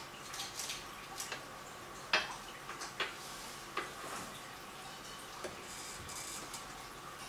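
Water dripping and plinking in a seawater aquarium: about a dozen irregular short clicks, the loudest about two seconds in, over a steady faint hum and hiss.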